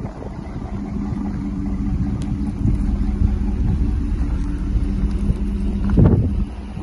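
Cadillac Escalade's V8 engine idling steadily, a low even rumble. A short gust of wind hits the microphone near the end.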